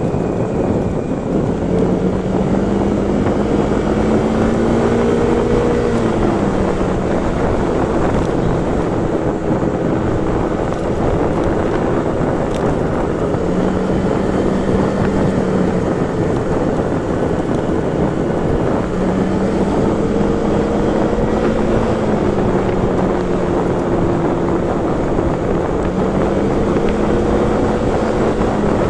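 Motorcycle engine running under way, its note rising and falling with the throttle several times, under a steady rush of wind on the microphone.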